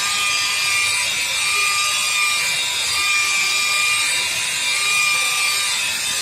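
DeWalt corded rotary polisher running with its foam pad pressed against a plastic headlight lens, polishing out the fading. It makes a steady motor whine over a rushing noise, and the whine's tones swell and fade as the pad is worked across the lens.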